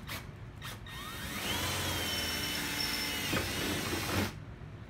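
Cordless drill spinning up with a rising whine about a second in, running steadily with a brief dip, then stopping about four seconds in: drilling a mounting hole through a plastic fender flare.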